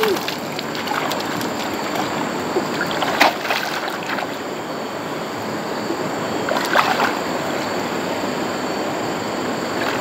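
Steady rushing of water, with a few short splashes about three and seven seconds in.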